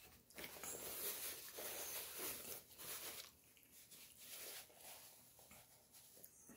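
Quiet eating noises: a fork working in a plastic frozen-meal tray, and chewing. They come in scratchy bursts through the first three seconds, with fainter ones a little later.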